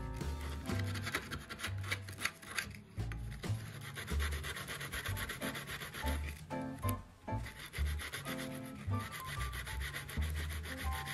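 Sandpaper rubbed by hand along the edge of a small piece of stainless steel sheet in quick, short back-and-forth strokes, smoothing the filed edges. Background music with steady tones and a repeating bass line plays underneath.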